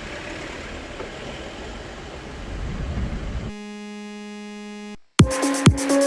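Steady rumble and hiss of vehicle noise. About three and a half seconds in it gives way to a steady electronic buzzing tone lasting about a second and a half. After a short gap, electronic dance music with a heavy regular beat starts near the end.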